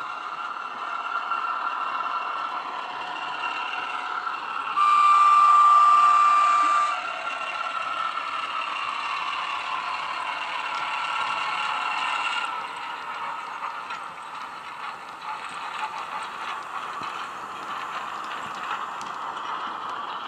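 Sound-fitted Hornby Class 08 shunter model playing its recorded diesel shunter engine sound through a small speaker, with one steady horn blast of about two seconds about five seconds in. The engine sound eases about twelve seconds in, leaving the light clicking and clatter of the wagons' wheels running over the model track.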